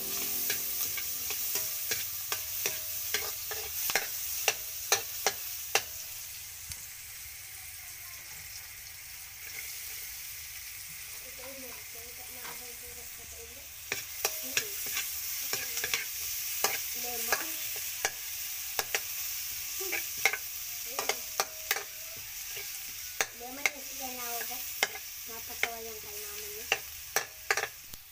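Onion and garlic sizzling in hot oil in a steel wok while a metal spatula stirs and scrapes, with sharp clinks of the spatula against the pan throughout. The stirring eases off for a few seconds about a third of the way in, then picks up again with more clinks.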